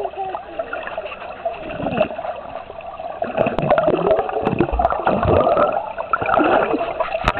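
Water bubbling and gurgling around a camera held underwater in a swimming pool, with scattered small clicks.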